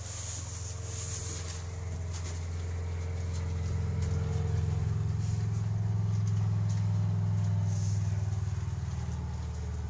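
A steady low engine rumble, like a motor vehicle running, that grows louder through the middle and eases off near the end.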